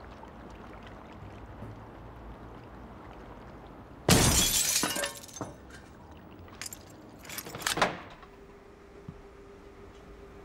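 A glass window pane smashes suddenly about four seconds in, followed a couple of seconds later by shards of glass falling and tinkling against the frame.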